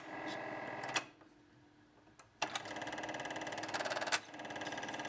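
Chinon Sound 7000 MV 8mm film projector: its main switch clicks and the mechanism stops about a second in, then it starts up again with a click and runs with an even, rapid clatter, now in reverse with the sound amplifier switched off.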